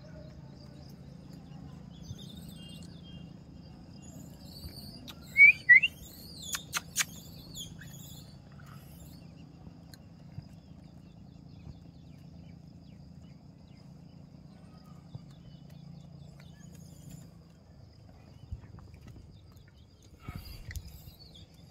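A steady faint low hum with a faint high steady tone above it. About five seconds in come two short, loud, rising animal squeaks, then a few sharp clicks.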